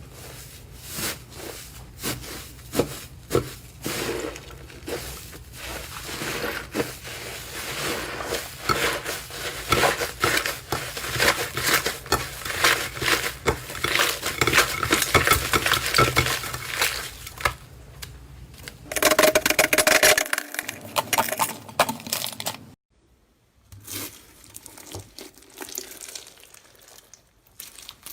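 Slime being handled and squeezed, giving rapid crackling and popping clicks. Near the end there is a brief louder squeak-like tone, then the sound cuts off abruptly and sparser, quieter crackling follows.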